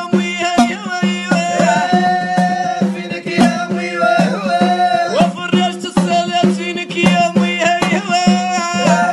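A male voice singing with long, wavering held notes, over frequent sharp strokes on a small hand drum.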